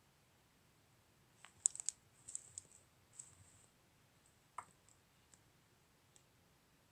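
Light clicks and taps on a laptop, made while the page is scrolled: a quick cluster about a second and a half in, then a few single clicks spaced out.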